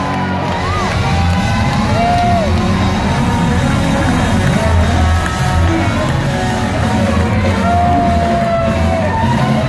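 Live rock band playing loudly in a concert hall, heard from the crowd, with a heavy bass low end and held, bending melody notes.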